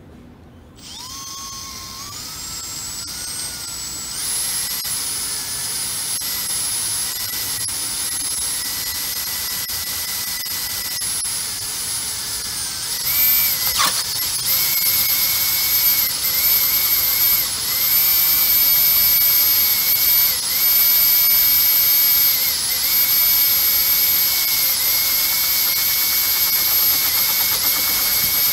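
Cordless driver drill spinning a Kanzawa K-150 adjustable circle cutter through a 3.5 mm polypropylene sheet: a steady, high motor whine with the cutter scraping the plastic. It speeds up over the first few seconds, dips and rises to a higher speed about halfway, and stops suddenly at the end.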